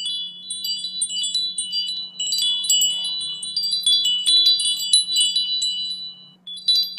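Bright tinkling chimes, many light high notes struck in quick succession over a faint steady low hum, as an intro sound effect. A short gap near the end is followed by a last flurry of notes that cuts off suddenly.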